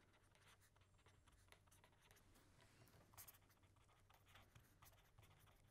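Faint scratching of a pen writing on paper in short strokes, slightly louder about three seconds in.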